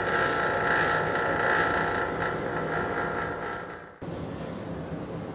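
A pump running steadily to pull a vacuum on a car's R134a air-conditioning system, with a steady whine over a low hum. It fades from about three seconds in, then drops suddenly to a quieter steady run at about four seconds. It is failing to pull a vacuum through that hookup.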